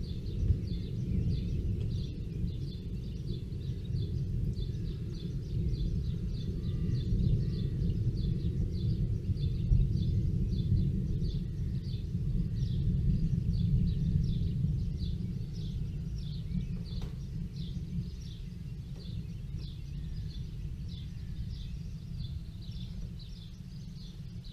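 Outdoor ambience dominated by a low, wavering rumble that swells and fades over several seconds. A bird repeats a short high chirp about twice a second throughout.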